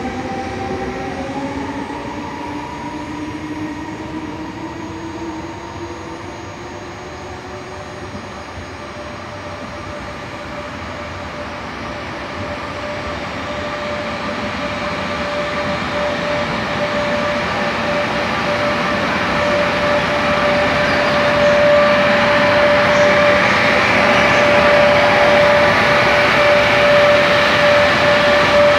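Electric passenger train approaching through the station and running past close by, its rumble and hiss and a steady whine building to loudest over the last several seconds. In the first several seconds an electric motor whine rises in pitch.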